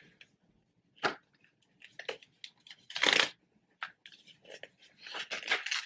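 Phone packaging being handled: scattered clicks and taps, a sharp click about a second in, a short rustle about three seconds in and a longer rustle near the end.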